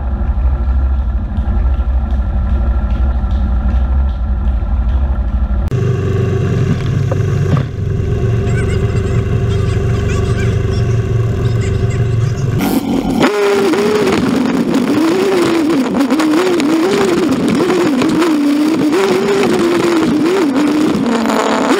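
Quad bike (ATV) engine heard through a waterproof camera housing: running steadily at first, it picks up about six seconds in, and from about halfway the engine note rises and falls again and again with the throttle as the bike is ridden along a bumpy dirt trail, over a rushing noise.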